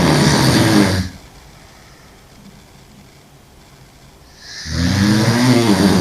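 A woman sleeping on her back snoring loudly. There are two long snores about five seconds apart. The first is already under way and ends about a second in; the second starts about four and a half seconds in. Each has a low pitched drone that rises and falls.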